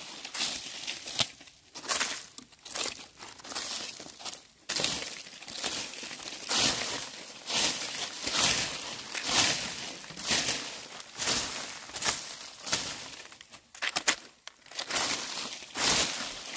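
A broom sweeping dry leaves: repeated rustling, crackling strokes, about one a second.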